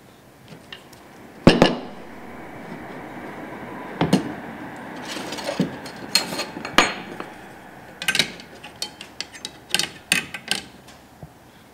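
Scissor pipe bender and a metal straightedge being handled on a wooden workbench: a series of sharp metal knocks and clinks, the loudest about a second and a half in.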